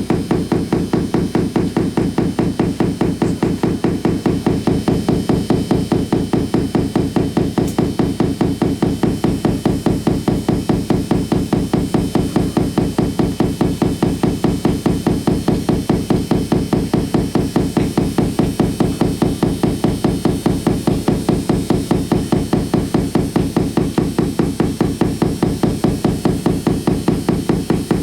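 Amplified electrical interference from compact fluorescent bulbs flickering on dimmer switches, picked up by exposed guitar cables: a loud, even, rapid pulsing buzz, several beats a second, without let-up. The pulsing comes from the bulbs failing to dim properly.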